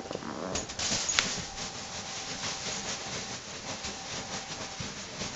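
A small dog scratching and pawing at a corduroy beanbag, the bag rustling and shifting under it, as it digs and circles to settle down. Quick scratchy scrapes run on throughout, loudest in the first second or so, with one sharp click a little over a second in.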